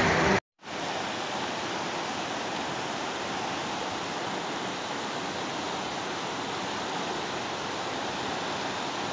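A fast mountain river rushing steadily over rocks through whitewater rapids. A song cuts off abruptly in the first half second before the water sound comes in.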